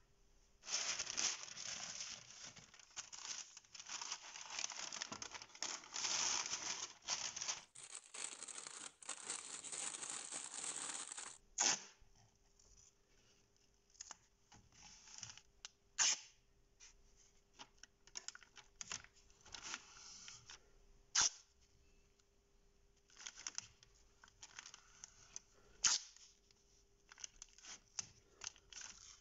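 Masking tape being pulled off the roll in long rasping rips for the first eleven seconds or so, then short crackles, rips and sharp clicks as pieces are torn off and pressed down onto the saw blade.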